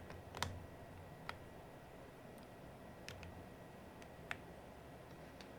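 Four sharp plastic clicks, spaced a second or more apart: keycaps being pressed back onto a mechanical keyboard's switches.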